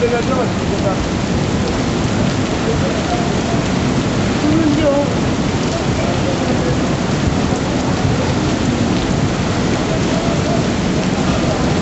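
Flash-flood torrent of muddy water rushing through a town street: a loud, steady, unbroken rush of water.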